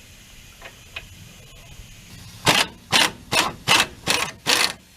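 Socket ratchet being worked back and forth on a suspension bolt. About halfway in, a run of six quick ratcheting strokes comes at about two or three a second.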